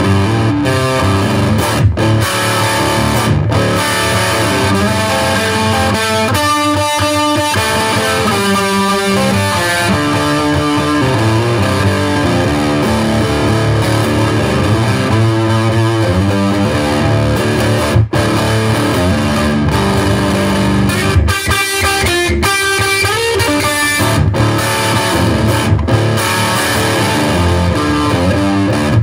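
Blues riff played on a Gibson Les Paul Studio electric guitar tuned down a whole step, with brief stops between phrases.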